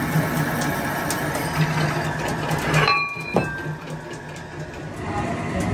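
Drill press running, its twist bit boring through thick steel plate with a steady hum and cutting noise. About three seconds in the drilling stops and the sound drops sharply, followed by a single click.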